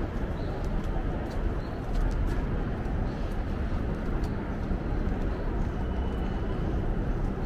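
City street ambience: a steady rumble of traffic with general street noise, growing slightly louder about two seconds in.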